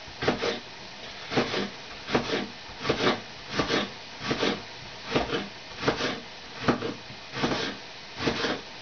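Knife slicing through a leek on a cutting board: a regular series of rasping cuts, about one every three-quarters of a second, some in quick pairs.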